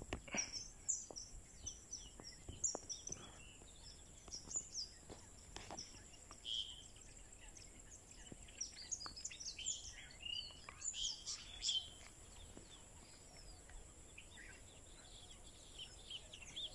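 Many small birds chirping and calling at once in short, overlapping high chirps, over a steady thin high-pitched whine.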